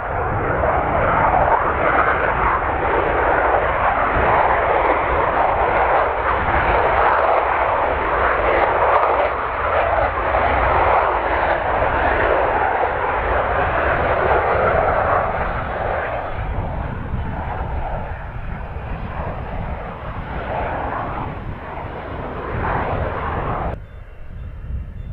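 Panavia Tornado GR4's twin RB199 turbofan engines at takeoff power during the takeoff roll: a loud, steady jet roar with deep rumble, building right at the start and easing off after about two-thirds of the way. Near the end it drops suddenly to a fainter jet sound of the aircraft climbing away.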